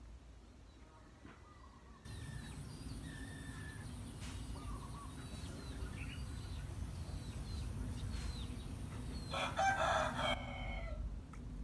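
A rooster crows once, a little after nine seconds in, loud and about a second long, over scattered chirps of small birds.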